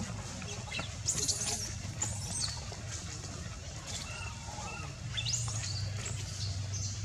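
Short, high-pitched animal chirps and squeaks from the forest: a few about a second in, another around two seconds, and a rising series just past five seconds, all over a steady low hum.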